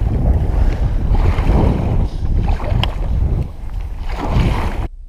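Strong wind buffeting the microphone over choppy lake water slapping against a kayak as it is paddled into the waves. It cuts off abruptly just before the end.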